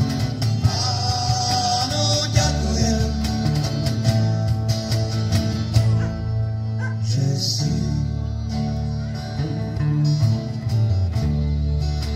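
Live band music with strummed acoustic guitar and electric guitar over a steady percussion beat.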